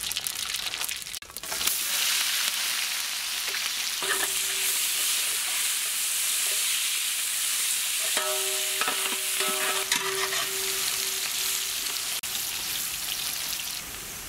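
Sliced onions and whole spices frying in hot ghee in a large pot, a dense, steady sizzle that grows louder about two seconds in. A flat metal spatula stirs them through the sizzle.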